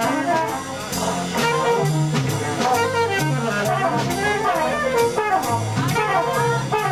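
Live jazz on saxophone and trumpet, with drums keeping a steady beat of about two strikes a second.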